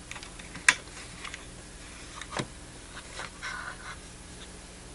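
Handling noise from a handheld oscilloscope-multimeter's plastic case and test leads being moved on the bench: a sharp click under a second in, a duller knock about two seconds later, then a short rustle.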